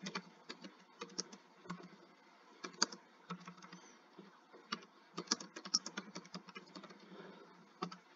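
Typing on a computer keyboard: irregular keystrokes coming in short runs with pauses between.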